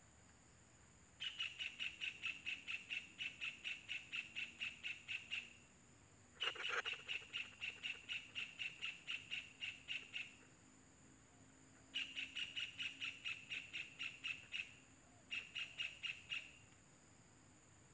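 Kingfisher nestlings calling in rapid trains of short, sharp notes, about five a second, in four bouts of a few seconds each. The second bout starts loudest. A steady high insect whine runs underneath.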